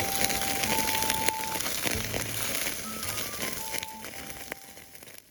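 Intro music: a simple melody of held notes over a crackling, hissy texture, fading out near the end.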